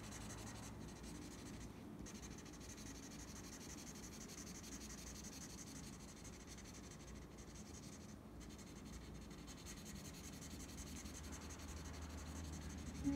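Felt-tip marker scribbling back and forth on paper while colouring in a shape: a faint, steady scratchy rubbing with a couple of brief pauses.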